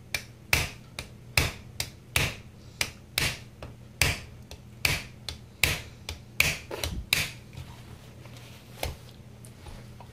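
A series of sharp clicks and knocks from handling and working on a Holley carburetor body with hand tools, about one or two a second for some seven seconds, then a single knock near the end, over a steady low hum.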